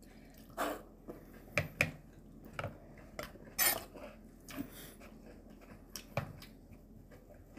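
Metal forks and a steel chopstick clinking and scraping against a ceramic serving bowl and plastic plates while eating, in scattered short clinks about once a second, the loudest about three and a half seconds in.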